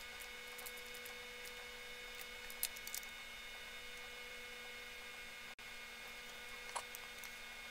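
Steady electrical hum with several whining tones layered over it. A few faint clicks come about two and a half to three seconds in and again near the end.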